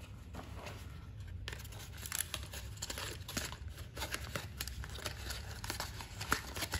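Cardboard toy box and clear plastic packaging being handled and opened: a continuous run of small crinkles and clicks as the tray holding a diecast truck is pulled out.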